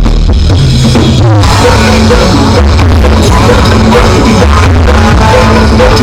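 Loud music with heavy bass and a drum beat played through big sound-system rigs at a sound check; the music changes about a second in.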